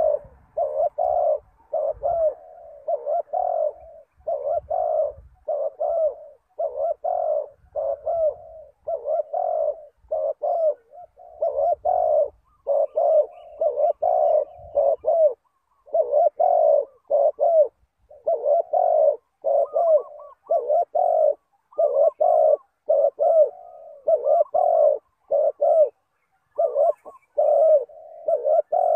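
Spotted dove cooing over and over: a steady run of short, low, hoarse coo notes, one or two a second, in repeated phrases.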